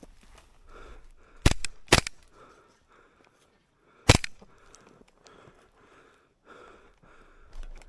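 Gas blowback airsoft gun firing single shots: two close together about a second and a half in, half a second apart, and one more about four seconds in, each a sharp crack with the bolt's clack.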